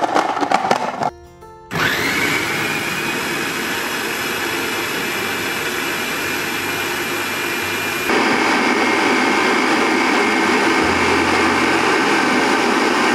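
Countertop food processor running steadily, its blade grinding walnuts, chickpeas, black beans and cocoa into a thick brownie paste. It starts up a little under two seconds in with a rising whine and grows louder and fuller partway through.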